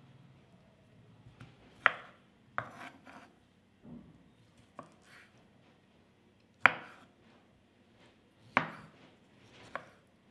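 Kitchen knife chopping pieces of preserved bamboo shoot on a wooden chopping board. About six sharp knocks of the blade hitting the board, spaced unevenly a second or two apart, with soft rubbing between.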